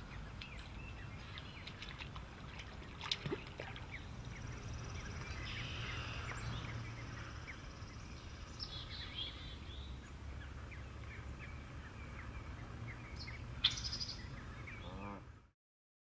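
Pond-side nature ambience: many short, high bird chirps and peeps over a steady low rumble, with a couple of louder calls. It cuts off suddenly near the end.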